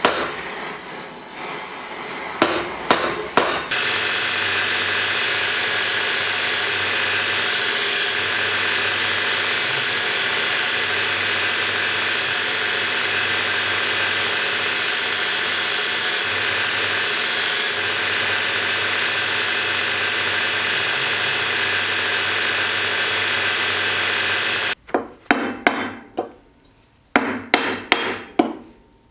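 Several sharp hammer taps, then a power tool motor running steadily for about twenty seconds and stopping abruptly, followed by another run of quick hammer taps.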